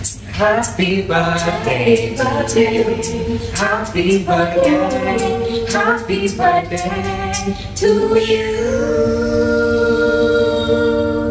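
A small mixed group of male and female voices singing a happy-anniversary song a cappella in close harmony over a crisp clicking beat, ending on a long held chord about eight seconds in.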